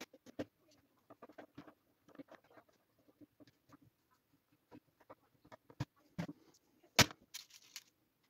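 Scattered light clicks, taps and scraping from hand-assembling a 3D-printed pinball drop-target unit, with a screwdriver turning a screw into it. A sharper click comes about seven seconds in.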